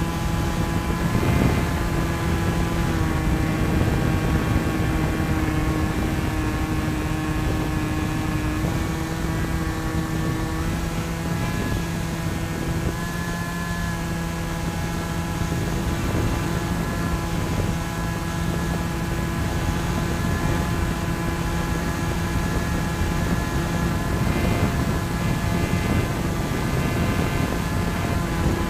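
Electric motor and pusher propeller of a Bixler foam RC plane running steadily in flight, heard from on board with wind rushing past the microphone; its hum dips and rises slightly in pitch now and then as the throttle changes.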